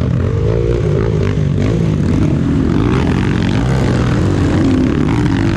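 Enduro motorcycle engine running while being ridden, its revs rising and falling continuously.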